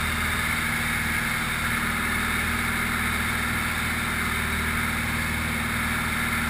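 Grob light aircraft's piston engine and propeller running at a steady drone, heard from inside the cockpit during aerobatic manoeuvres.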